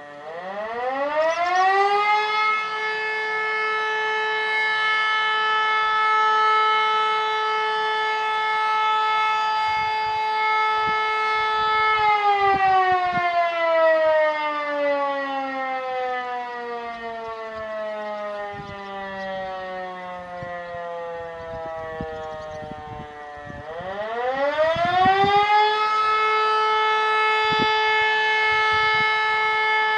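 E57 electromechanical siren sounding the German fire alarm signal during a siren test. It winds up to a steady tone about two seconds in and holds until about twelve seconds. It then winds down slowly for about eleven seconds, the pause between the signal's tones, before winding up again and holding a steady tone.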